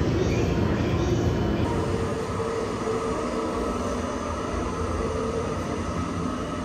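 Steady low rumble and hum inside an electric limited-express train car, with a few faint steady tones over it.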